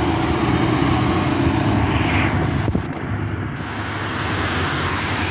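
Steady running noise of a 2011 New Flyer DE40LFR hybrid transit bus heard from inside: a low drivetrain hum with road noise. A brief high chirp comes about two seconds in, followed by a click.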